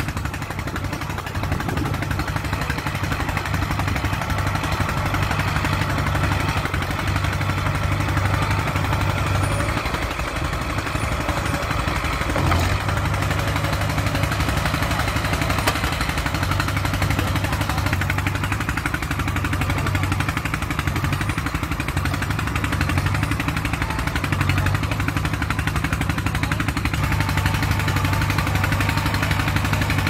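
Small crawler bulldozer's diesel engine running steadily under load with a rapid knocking beat as its blade pushes soil, with one sharper knock about twelve seconds in.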